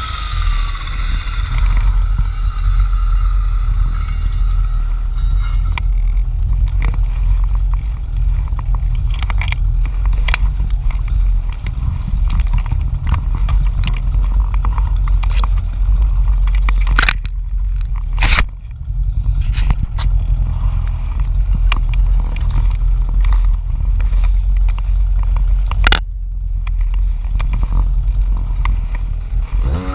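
Jonsered FC 2256 W clearing saw's two-stroke engine winding down from high revs at the start and then idling steadily. Frequent short clicks and scrapes sound over the idle.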